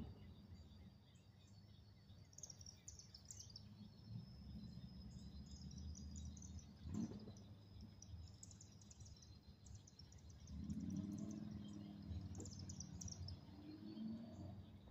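Faint small-bird chirps come in scattered bursts over low outdoor background noise, with a steady thin high tone underneath. A single sharp tap sounds about seven seconds in.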